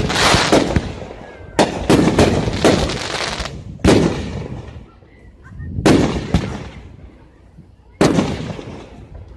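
Aerial fireworks shells bursting: a string of sharp bangs about every two seconds, each fading out over a second or more. A cluster of quick cracks follows the second bang.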